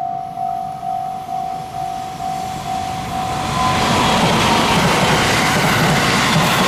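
Japanese level-crossing warning bell ringing about twice a second. From about three and a half seconds in, a passing train's running noise swells and covers the bell.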